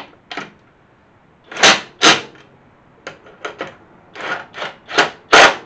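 Impact wrench run in a series of short, sharp bursts, tightening a nut on the steering tower mount, with two loud bursts about a second and a half in and more toward the end.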